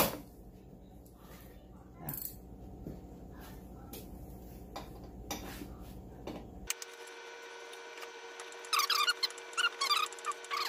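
Scattered light clicks and taps of hand work on plastic engine-bay parts, with a sharper click at the very start, then several short high chirps in the last few seconds.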